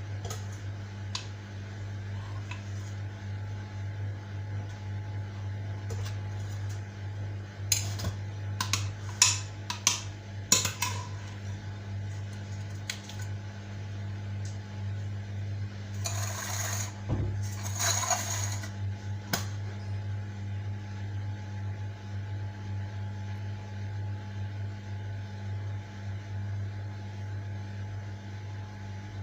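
Spoon and metal madeleine molds clinking, several sharp clinks close together, then two short scraping rustles, over a steady low hum.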